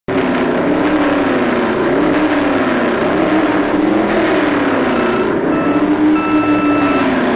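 Racing car engine sound effect, revving up and down over and over. Near the end a start-light countdown sounds: two short beeps and then one longer beep.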